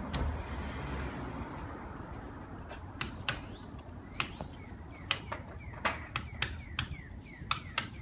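A series of sharp, irregular clicks or taps, starting about three seconds in, some followed by a short falling chirp, over a low background rumble.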